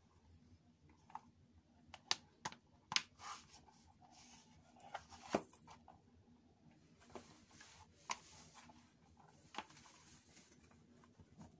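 Faint, irregular sharp taps and soft scuffs of Kate Spade pink jelly flats knocking against a wooden floor as the foot dangles and slips in and out of them.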